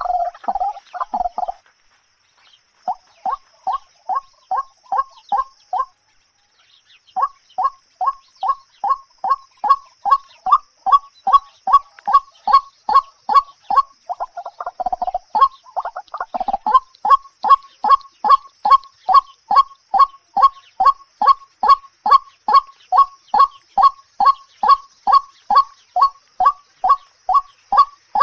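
A bird repeating a short call at a steady pace, a little over two calls a second, with a brief pause twice early on and a longer, rougher call about halfway through. A faint steady high hiss runs underneath.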